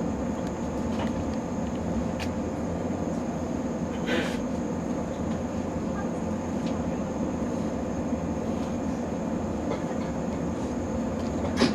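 Steady rumble and hum inside a train car standing still, with a faint high steady whine and one brief click about four seconds in.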